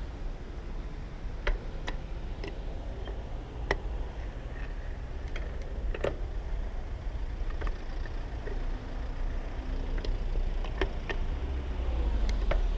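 Low, steady rumble of queued road traffic heard from a bicycle riding slowly between cars, swelling near the end, with scattered irregular sharp clicks and ticks.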